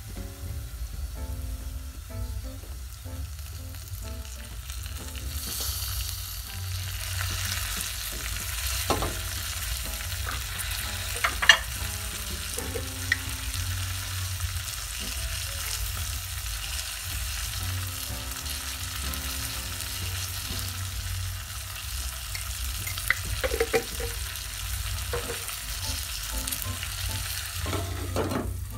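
Beef, onions and spices sizzling as they fry in a stainless steel pot, stirred now and then: the base of a pilau. The sizzle grows brighter about six seconds in, with a few sharp knocks of the utensil against the pot, the loudest about eleven seconds in. Near the end the glass lid is set on the pot.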